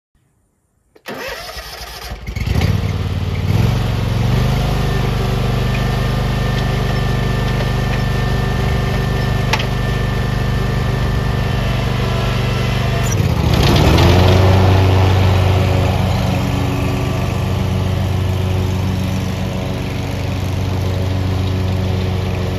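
Kubota Z421KWT zero-turn mower's Kawasaki V-twin engine starting about a second in, catching after a brief crank, then running steadily. About halfway through it speeds up to a higher steady speed, with a small dip in pitch near the end.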